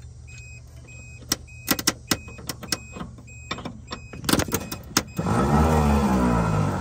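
Sharp clicks from the Marmon cab-over's starting circuit, then a loud starter-motor whir for about a second and a half starting around five seconds in; the engine does not fire. A steady low hum and a repeating electronic beep sound underneath.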